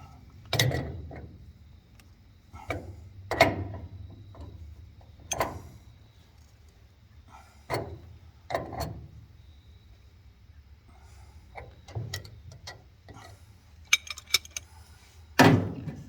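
A wrench clanking and scraping against threaded metal pipe fittings as a fitting is turned tighter, in irregular strokes every second or two. A low steady hum runs underneath.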